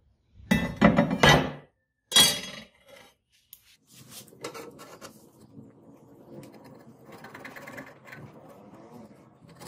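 A flat steel knife blank and sheet clattering down onto a wooden workbench, two loud metallic bursts in the first few seconds. Then a quieter, continuous scratching as a pen is drawn around the blade's outline on the sheet.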